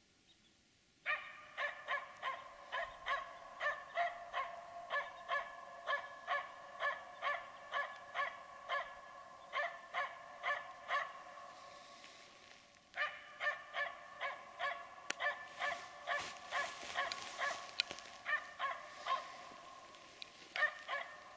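Finnish spitz tree-barking: a quick, steady run of high barks, about two a second, with a brief pause around the middle. This is the rhythmic barking a bird dog keeps up to mark game in a tree for the hunter.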